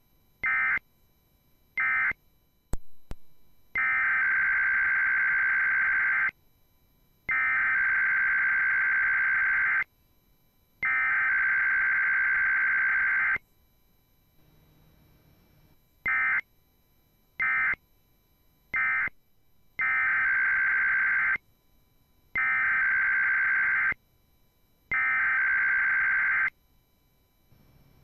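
Emergency Alert System SAME digital data bursts, each a buzzy two-tone electronic warble. Two short bursts and a click, then three long header bursts, three short end-of-message bursts, and three more header bursts, each group evenly spaced about a second apart.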